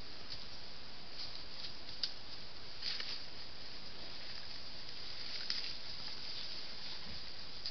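Wild boar moving through dry leaf litter: a few soft rustles and crackles about two, three and five and a half seconds in, over the steady hiss of the trail camera's microphone.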